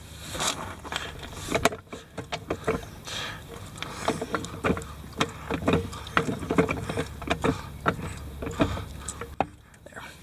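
Pittsburgh hydraulic floor jack being pumped, its saddle rising to a golf cart's frame: a run of short metallic clicks and knocks, a few a second, from the handle strokes and the lifting arm.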